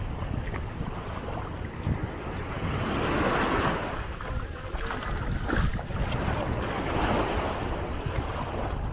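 Sea waves washing ashore in slow surges that build and ebb every few seconds, with wind buffeting the microphone.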